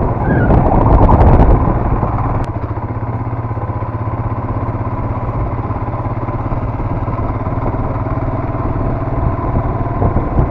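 Royal Enfield Himalayan's single-cylinder engine running steadily under way, heard from the rider's seat, louder for the first second and a half. A single sharp click about two and a half seconds in.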